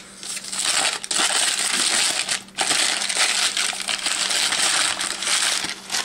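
Brown paper wrapping being crumpled and pulled off a small box by hand: a loud, continuous crinkling with a brief pause about two and a half seconds in.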